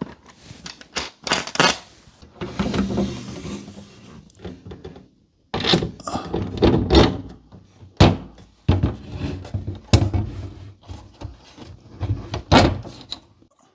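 Irregular clicks, knocks and thunks of hand-working a screw and metal molly wall plug at the wall, with a few louder knocks.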